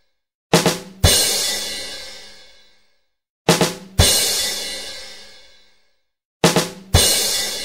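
Drum-kit rimshot sting, 'badum tss', played three times: two quick drum hits and then a cymbal crash that rings and fades out over about two seconds.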